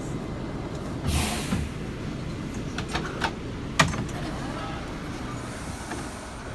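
R179 subway train with a steady low rumble, a short burst of air hiss about a second in, then a few sharp clicks and knocks, the loudest near four seconds in.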